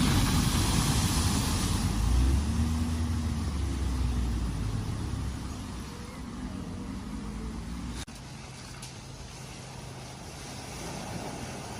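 A car driving through a flooded ford. Loud water spray hisses for the first two seconds, then the engine note rises and wavers as the car pulls away and fades. After a sudden cut about eight seconds in, a quieter steady low engine hum continues.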